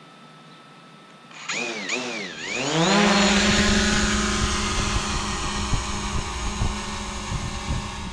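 A DJI Mavic Pro quadcopter's motors start about a second and a half in, their pitch dipping and rising twice. They then climb into a steady high whine and buzz as it lifts off, and the propeller noise slowly fades as it rises.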